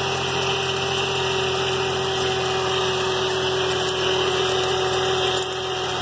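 A 2003 GMC Envoy's 4.2-litre six-cylinder engine idling steadily, with a steady whine over it. It now runs without the miss, the misfire cured by a replacement coil pack on cylinder four.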